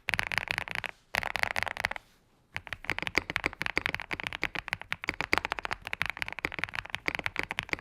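Typing on a custom mechanical keyboard, a KBDfans Tiger Lite kit with stock, factory-lubed Strawberry V2 switches: a fast, uneven stream of creamy, poppy keystrokes, with brief pauses about one and two seconds in.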